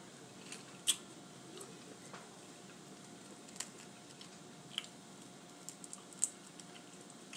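Boiled crawfish shells being cracked and peeled apart by hand: a few scattered, sharp little clicks and crackles, the strongest about a second in and again near six seconds.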